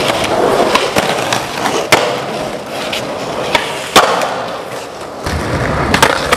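Skateboard wheels rolling on concrete, with sharp clacks of the board hitting the ground, the loudest about four seconds in.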